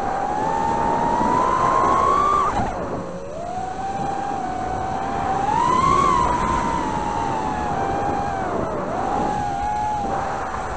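Emax Tinyhawk micro FPV drone's brushless motors and propellers whining in flight, the pitch rising and falling with the throttle. The pitch climbs for about two seconds and drops sharply, then climbs to a peak around the middle and sags again near the end. It is heard through the Firefly camera mounted on the drone itself.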